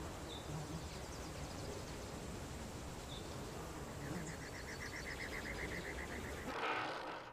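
Summer outdoor ambience: a steady hiss with insects trilling, including a fast even pulsing trill of about eight beats a second that starts about four seconds in. Near the end a brief louder rush of noise cuts across it.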